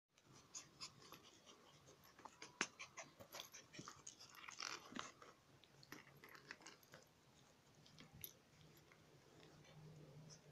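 Faint clicks and snaps of a puppy's teeth as it mouths and play-bites a hand, busiest in the first five seconds and sparser after.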